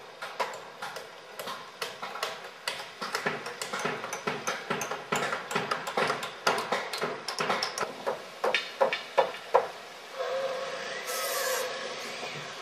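Hammers driving nails into wooden wall framing, in irregular overlapping strikes several times a second, the loudest blows coming about nine seconds in. The hammering stops and gives way to about two seconds of a steadier noise with a faint tone.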